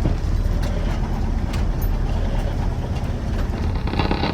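Ford Ranger pickup driving, heard from inside the cab: the engine and glass-pack exhaust keep up a steady low drone, with a few short knocks and rattles from the truck.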